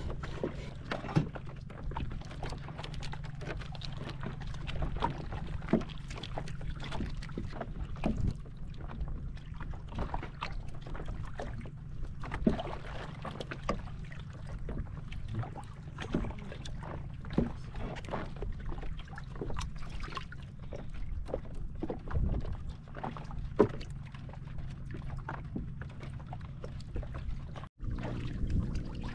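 Water lapping and sloshing against a small outrigger boat's hull, with scattered sharp knocks on the boat and a steady low hum underneath.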